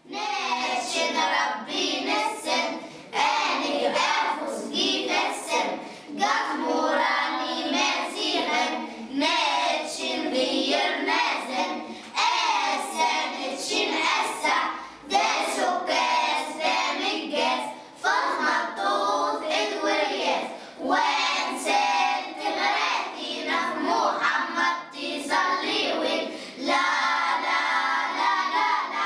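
A group of children singing a song together; near the end they sing a "la la la" refrain.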